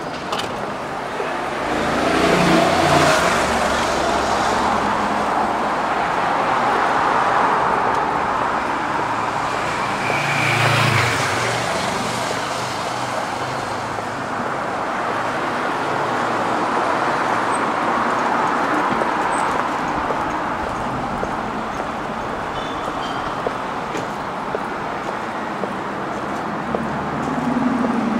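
City road traffic: a steady hum of cars, with vehicles passing close by and swelling loudest a couple of seconds in and again around ten seconds in.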